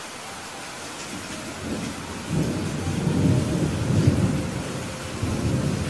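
Steady rain hissing, with a long roll of thunder rumbling in about two seconds in, loudest in the middle and easing off near the end.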